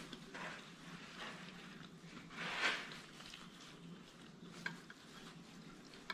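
Quiet eating sounds: a metal fork moving on a ceramic plate, with a brief rush of noise about two and a half seconds in and a couple of light fork clicks on the plate near the end.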